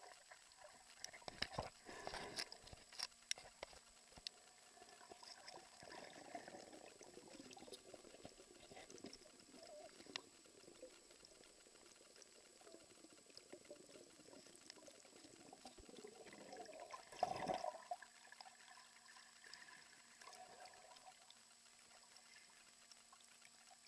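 Faint underwater sound of moving water and bubbling, dotted with sharp clicks and knocks, several in the first few seconds and a louder bubbling burst about seventeen seconds in.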